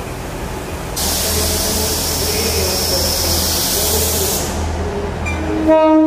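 ScotRail Class 158 diesel multiple unit pulling out of the platform: a low engine rumble under a loud rushing hiss that starts about a second in and cuts off abruptly about four seconds in. Near the end an arriving train gives a short horn blast.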